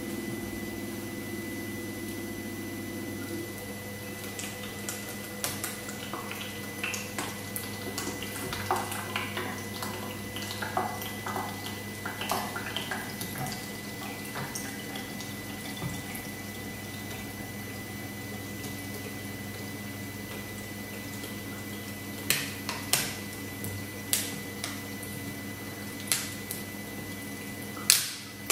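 Quantex Arc LR-13 disposable high-vacuum pump running with a steady hum while it draws the air out of a sealed PET bottle. The bottle crackles and crinkles as it collapses under the vacuum, with a few sharp pops near the end.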